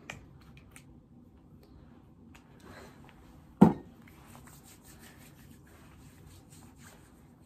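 Hand hygiene with a small bottle of hand sanitizer: a few faint clicks from handling the bottle, one sharp knock about halfway through, then hands rubbing together in a run of faint, quick swishes.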